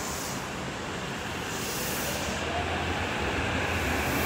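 Tokyo Metro 8000 series subway train pulling away from the platform: a steady rumble that grows louder, with a faint rising motor whine from about halfway through as it gathers speed.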